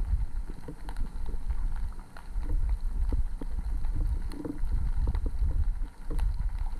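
Underwater sound from a submerged camera: a muffled low rumble of moving water with many irregular small clicks and knocks.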